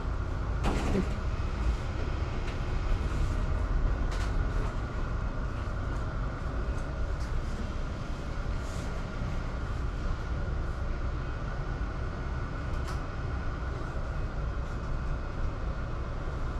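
Steady low rumble of background noise, with a few light clicks, the clearest about a second in and about four seconds in.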